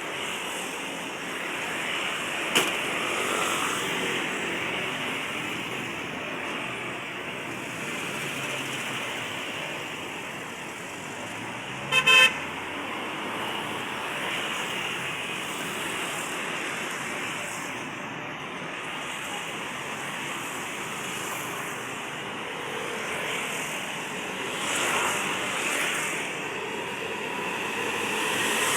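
Road traffic passing steadily, with a vehicle horn giving a short double toot about twelve seconds in and a single sharp click a few seconds in.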